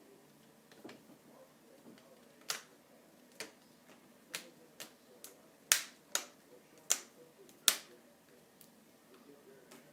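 Snap-on plastic front screen bezel of an Acer Aspire V5-552 laptop clicking into place under light hand pressure: about a dozen sharp, irregular snaps, each one a clip seating, the two loudest a little past halfway.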